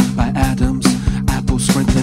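Electronic indie band playing live: an instrumental passage with a steady, evenly repeating drum beat over a low repeating bass line.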